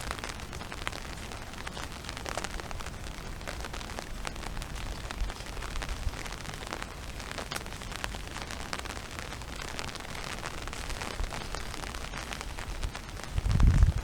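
Steady rain falling, with many small drop impacts pattering close to the microphone. A loud low rumble comes in right at the end.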